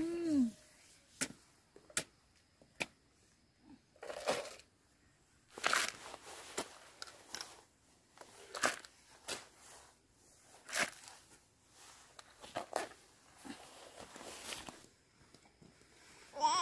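Irregular sharp clicks and short tearing, crunching sounds, scattered a second or two apart, as of something being handled, torn or snapped by hand.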